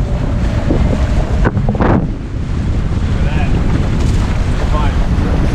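Heavy wind buffeting on the camera microphone and water rushing past the hulls of a Nacra 20 racing catamaran sailing fast, broken briefly about a second and a half in.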